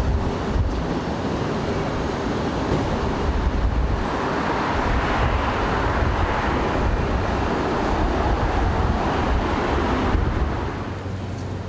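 Steady rumbling vehicle and road noise, swelling in the middle and easing off about ten and a half seconds in.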